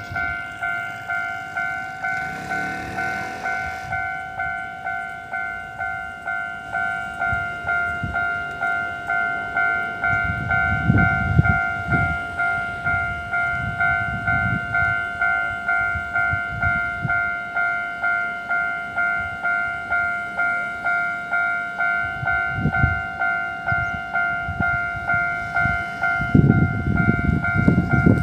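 Taiwanese level-crossing warning bell ringing steadily, an electronic two-tone ding repeating about twice a second. Low rumbling passes swell underneath about ten seconds in and again near the end.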